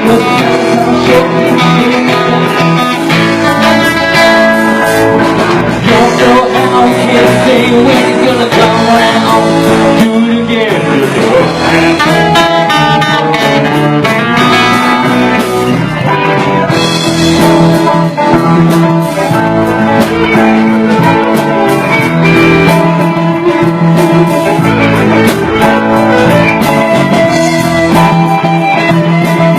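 Live band playing a song with guitar to the fore.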